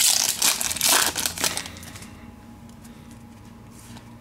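Trading card pack wrapper crinkling as it is handled and opened; the crinkling stops a little under two seconds in.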